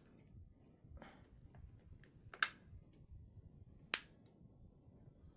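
Sharp clicks from working on an opened Realme C11 smartphone: a softer one about a second in, then two loud ones about a second and a half apart.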